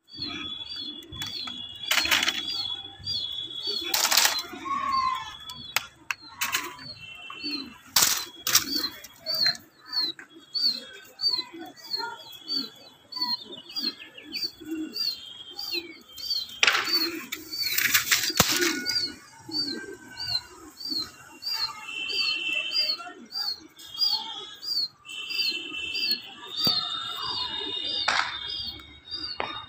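Flapping pigeon wings in several loud, sudden bursts, over a high chirp that repeats evenly about one and a half times a second.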